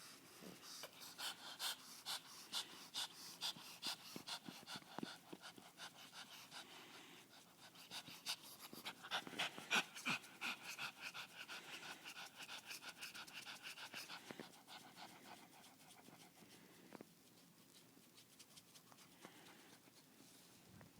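Pug breathing noisily in quick, short breaths, several a second, growing softer after about fourteen seconds.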